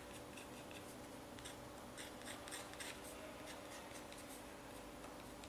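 Faint, quick scratching of a steel scriber rubbed back and forth across blued sheet metal, shading in the waste areas to be cut off.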